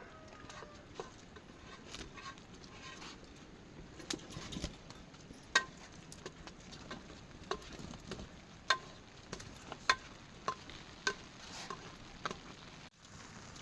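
Rain falling with a steady faint hiss, and single water drops dripping and plinking at irregular intervals, each a sharp little tick with a short ringing tone.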